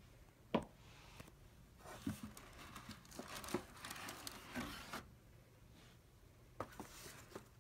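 Cardboard hat box rustling and scraping as a top hat is lifted out of it by hand: a sharp tap about half a second in, a few seconds of crinkling and scraping, then a few light knocks near the end.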